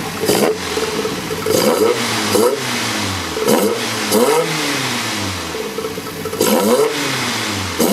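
Highly modified 2.1-litre VW 16V ABA four-cylinder on individual throttle bodies with open velocity stacks, revved in a series of quick throttle blips, each a sharp rise and fall in revs. The intake noise of the throttle bodies snapping open comes through with a mechanical edge.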